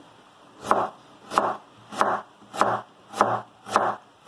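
A chef's knife slicing an onion lengthwise into thin strips on a wooden cutting board. Six even cuts come a little more than half a second apart, each a short slicing swish ending in a knock of the blade on the wood.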